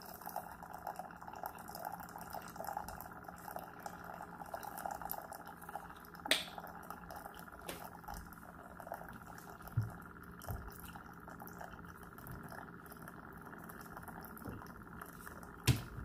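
Sboly single-serve coffee maker brewing a cup of tea, a thin stream of hot water trickling steadily into a ceramic mug. A few brief clicks are heard along the way.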